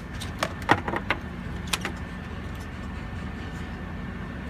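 A few light clicks and taps, about five in the first two seconds, as a driver tool works the 7mm screws of a GM truck's instrument cluster against the plastic dash, over a steady low hum.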